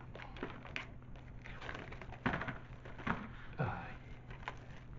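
A Blu-ray case and its cardboard slipcover being handled: irregular rustling and scraping as the case is slid out, with the strongest scrapes about two seconds and three and a half seconds in.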